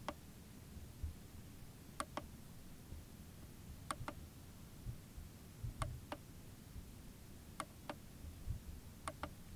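Faint pairs of sharp clicks, repeating at an even rhythm about every two seconds, over a low background rumble.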